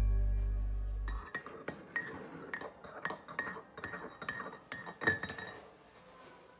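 Background music fading out and stopping about a second in. It is followed by a run of light clinks and taps of hard objects, a few a second, with one louder clink about five seconds in.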